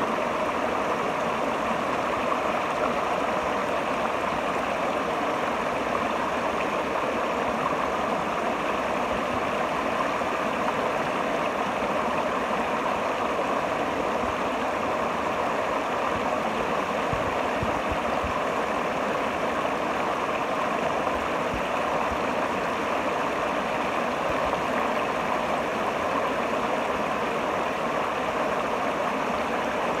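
River water rushing over a rock ledge and churning in a rock pool: a steady, even rush of white water.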